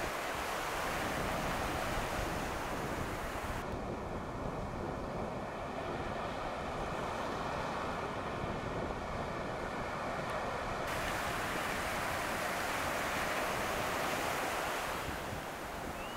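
Sea surf breaking and washing up the shore in a steady rush, with wind on the microphone.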